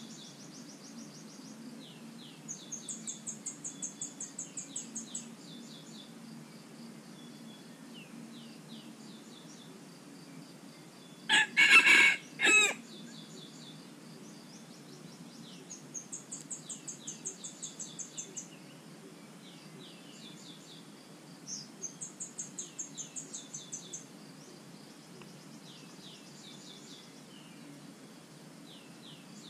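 A rooster crows once, about eleven seconds in: one short crow of about a second and a half, ending in a brief separate note. Between crows, a small bird repeats runs of rapid high trills several times.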